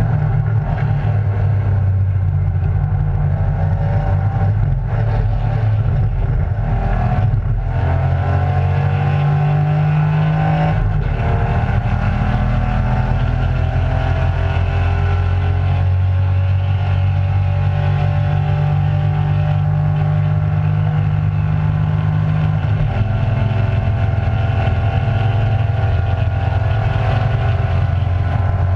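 Race car engine at racing speed heard from inside the cockpit, its pitch climbing and falling as it is driven hard through the corners, with two brief breaks about seven and eleven seconds in.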